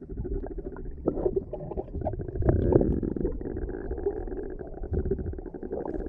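Muffled rumbling and gurgling of river water heard through a camera held underwater beside a small boat, with a few louder dull surges.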